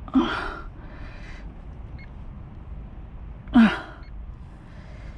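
A person's short strained grunts, twice, about three seconds apart, each falling in pitch, with a softer breath after the first: straining while trying to cut a fishing hook free with pliers.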